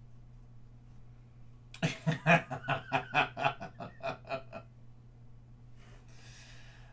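A man laughing: a run of short, rapid, loud bursts lasting about three seconds, starting about two seconds in.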